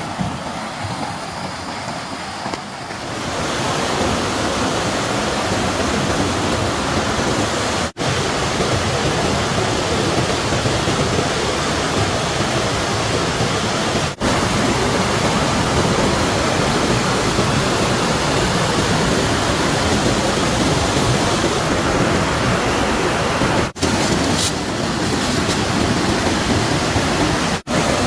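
Rushing water of a stream, a steady loud wash of noise that swells about three seconds in and drops out for an instant four times.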